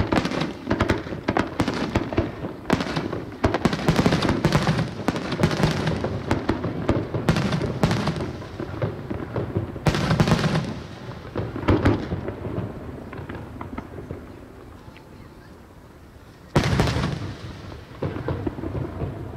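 Aerial fireworks display: a rapid run of shell bursts and crackle that thins out and dies away, then one loud shell burst near the end whose sound trails off over a couple of seconds.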